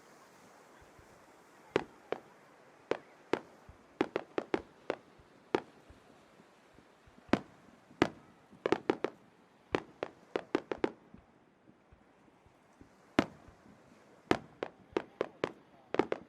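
Aerial fireworks bursting in a string of sharp bangs. The bangs start about two seconds in and come in irregular quick clusters, with a short lull past the middle before more follow.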